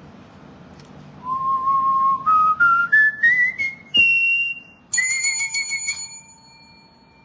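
A rising series of whistle-like notes climbing in small steps, a sharp click, then a bright ringing chime of several tones that flutters briefly and fades away.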